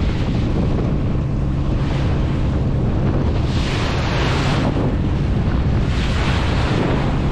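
Steady low drone of a fishing boat's engine, with wind buffeting the microphone and rushing sea water that swells about halfway through and again near the end.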